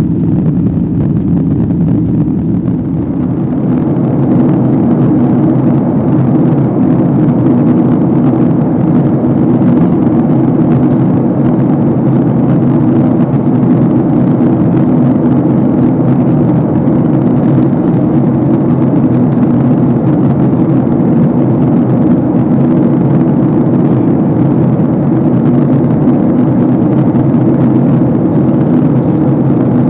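Steady drone of a jet airliner's cabin in flight: engine and airflow noise, deep and even, with a faint steady hum.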